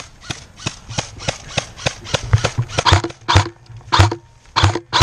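Airsoft guns firing a steady string of sharp pops, about three shots a second, growing louder in the second half.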